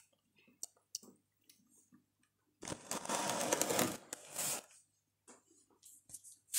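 Handling noise: a rough rubbing, rustling sound for about two seconds in the middle, with scattered light taps and clicks before and after it.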